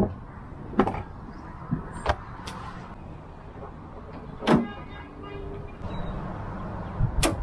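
Handling noises as parts and tools are moved about at the car: about five short, sharp clicks and knocks a second or two apart, one about halfway followed by a brief rattle, over a steady low hum.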